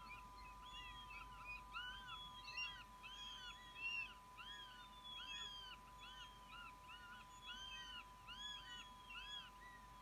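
Young northern goshawks on the nest calling over and over while squabbling over food: a rapid, overlapping series of thin, arching whistled calls, several a second. A steady faint high whine runs underneath.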